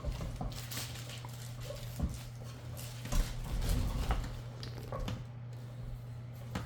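Irregular knocks and clicks of mower handle parts being handled and fitted together during assembly, over a steady low hum.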